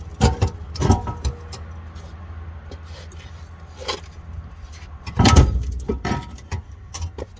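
Metal clanking and rattling, a few knocks near the start and a loud cluster about five seconds in, over a steady low hum.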